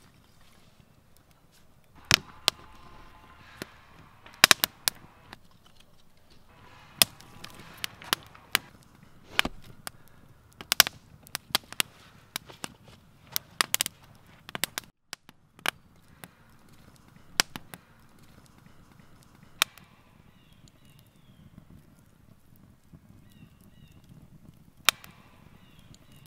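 Split-wood fire crackling, with sharp, irregular pops and snaps over a low hiss. The pops come thick and fast in the first half and grow sparser in the second half.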